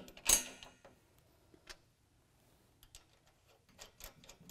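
Small metal hardware clinking as a washer and nut are fitted by hand onto a bolt: one sharp, ringing clink about a third of a second in, then a few faint ticks.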